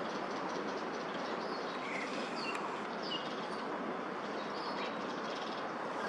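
Steady city background noise, like a distant traffic din, with scattered short high chirps from birds in the park.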